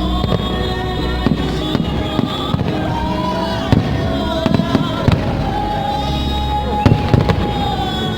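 Fireworks display: repeated bangs and crackling bursts, several louder reports about four and seven seconds in, over the show's music soundtrack playing loudly.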